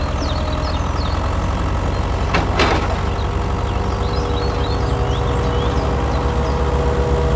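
Heavy diesel engine running steadily at idle with a rhythmic low throb, like a tractor or truck, with a short hiss about two and a half seconds in.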